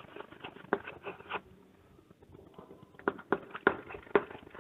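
Chalk on a blackboard as a word is written: short taps and scratches, with a pause of about a second and a half in the middle.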